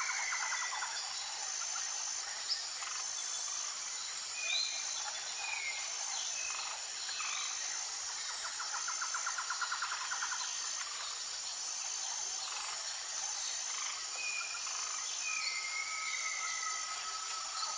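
Tropical jungle ambience: a steady high insect drone with a short note repeating about once a second, and birds calling over it with short falling whistles and a rapid trill about nine seconds in.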